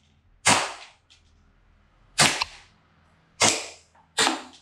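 Tokyo Marui Hi-Capa 5.1 gas blowback airsoft pistol firing four shots at uneven intervals, each a sharp crack that dies away in about half a second.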